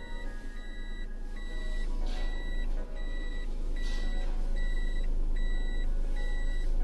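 A car's in-cabin reverse warning beeps steadily, one short high beep about every 0.8 seconds, while the car backs up slowly, over the low hum of the engine and tyres.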